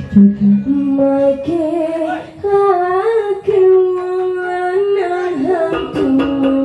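Banyuwangi-style music: a single high melody with sliding, wavering notes and a long held note in the middle, with no drumming and a few light clicks near the end.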